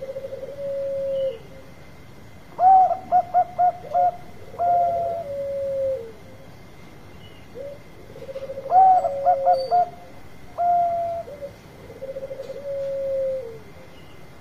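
Bangkok-strain zebra dove (perkutut) singing its cooing song twice. Each phrase is a rolling low coo, then a quick run of about five short staccato notes, then longer drawn-out coos.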